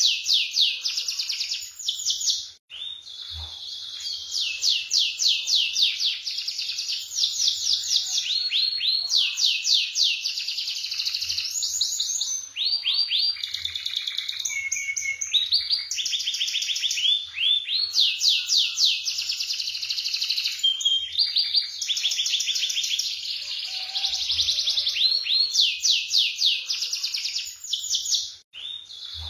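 Domestic canary singing nonstop in fast rolling trills: long runs of rapidly repeated high notes, the runs changing speed one after another, with a short break about two and a half seconds in and another near the end.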